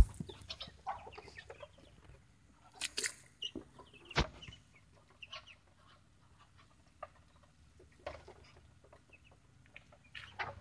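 A flock of Muscovy ducks feeding from trays: scattered pecking and bill clicks with short, soft bird calls. Sharper knocks come about three and four seconds in.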